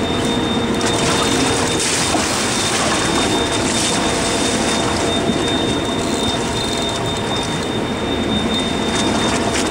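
Steady noise of wind and water on an open boat with an engine running, and a thin, steady high tone throughout.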